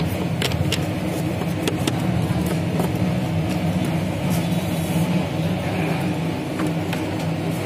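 A steady low engine hum, with scattered light clicks and taps as a plastic air filter housing cover is set in place by hand.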